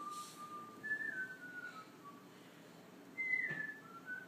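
A person whistling a string of short notes, several of them gliding downward in pitch.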